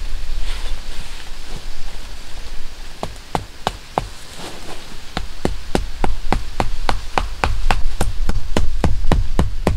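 Hatchet used as a hammer to drive a tent stake into the ground: a quick run of sharp knocks, about three to four a second, starting about three seconds in, with a brief pause before picking up again.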